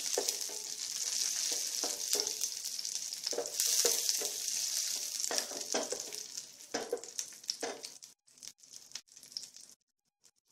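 Cashews and raisins sizzling as they fry in ghee in a pan, with the clicks and scrapes of stirring. The sizzle dies away over the last few seconds, leaving near silence near the end.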